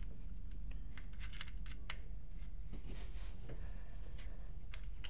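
Faint scattered clicks and light scraping of a small hex key turning out the side screws of a First Strike Compact paintball pistol's plastic frame, over a low steady hum.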